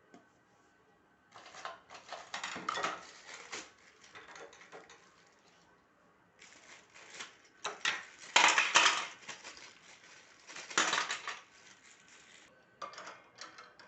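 Irregular bursts of metal clattering and rattling, loudest about two thirds of the way through, as of metal objects being handled and knocked together.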